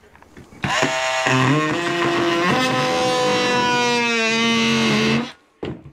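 Power drill cutting a hole in the plastic of the feeder, its motor running under load for about four and a half seconds with the pitch shifting in steps as the load changes, then stopping abruptly.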